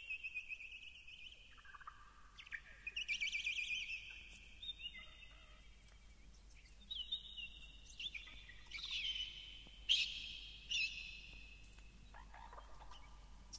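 A songbird singing a run of varied phrases about a second each, some steady and whistled, some warbled or trilled, with a few sharp higher notes near the middle.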